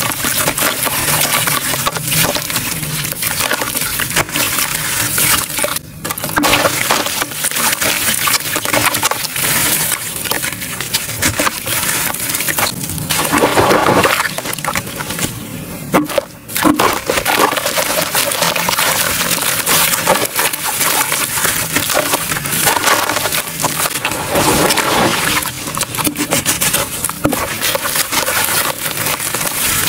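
Hands crushing and crumbling gritty charcoal: loud, continuous crunching and crackling. It starts as dry, dusty charcoal breaking apart and goes on with soaked charcoal chunks squeezed and broken up in water, with short breaks about six and sixteen seconds in.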